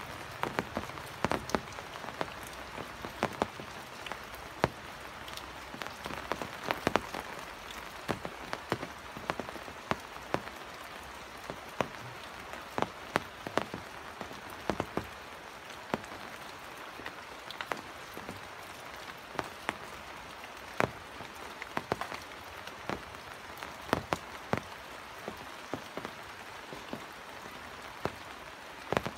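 Steady rain falling, with frequent sharp, irregular taps of drops striking close by.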